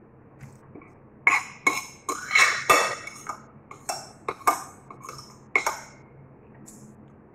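Metal spoon and fork clinking and scraping against a dinner plate. The clinks come in a quick irregular run, most of them in the first half, then thin out.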